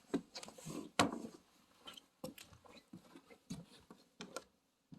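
A series of sharp knocks and clicks in a small room, irregular, roughly one a second, the loudest about a second in.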